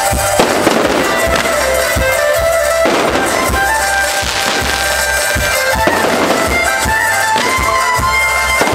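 Spinning wheel fireworks hiss in repeated surges as they throw sparks, with many sharp cracks and pops. Reedy music with held notes plays underneath.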